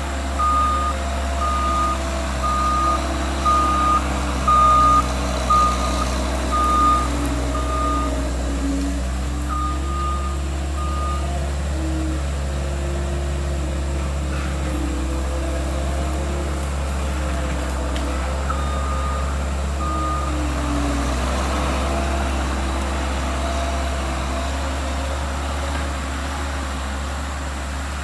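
Skid steer loader's diesel engine running under load with shifting pitch, its backup alarm beeping a little over once a second while it reverses. The beeping stops and starts again twice as the machine changes direction.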